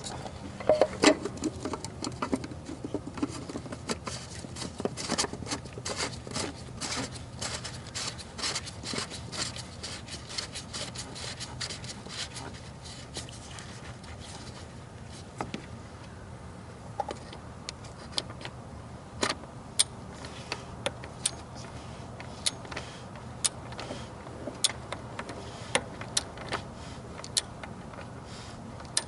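Irregular clinks and clicks of small metal parts and tools being handled, dense and loud in the first half and sparser later, over a faint steady low hum.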